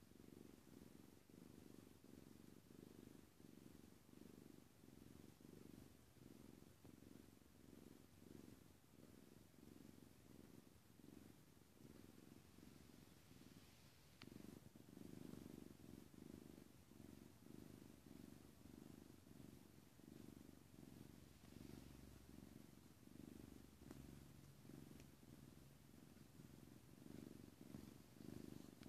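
Tabby-and-white domestic cat purring, a soft, low rumble that pulses with each breath in and out. It grows a little louder about halfway through.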